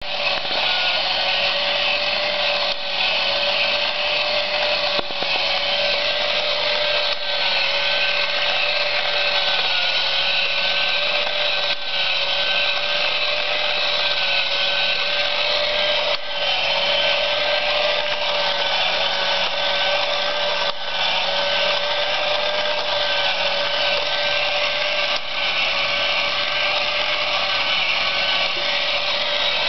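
A small motor running steadily with a high, slightly wavering whine over a hissing noise. It dips briefly every few seconds.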